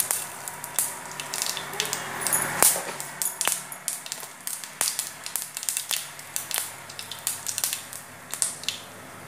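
Spice seeds spluttering in hot oil in a non-stick frying pan: a hiss of sizzling with frequent sharp pops and crackles, one louder pop about two and a half seconds in, thinning out toward the end.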